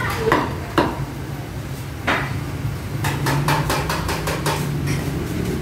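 Sharp knocks and clicks over a steady low hum: a few separate ones in the first two seconds, then a quick run of several a second past the middle.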